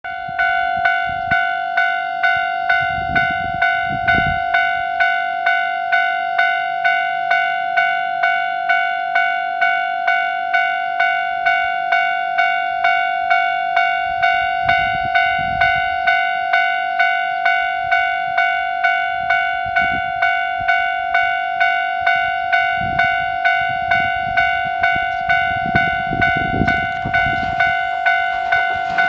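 Japanese railway level-crossing warning bell ringing steadily at a little under two strikes a second, signalling that a train is approaching.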